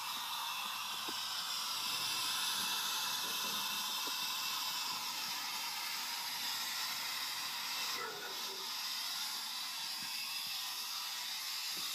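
Recorded hairdryer sound played back through a phone's small speaker: a steady blowing hiss.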